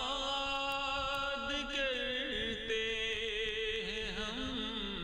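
Solo voice chanting a melodic Islamic recitation, holding long notes that bend and waver.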